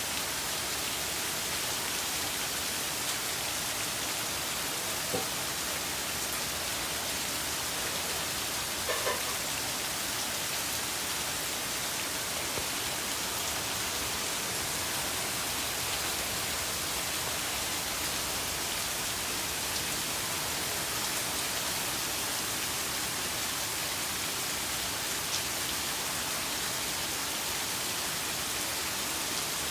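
Steady rain falling, an even hiss throughout, with a couple of faint taps about five and nine seconds in.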